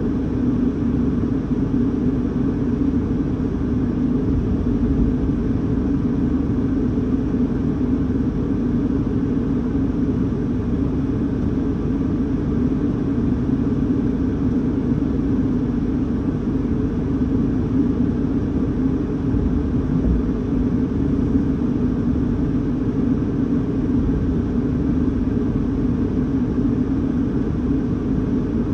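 Steady low rumble inside a car's cabin, even throughout with no gusts or separate impacts.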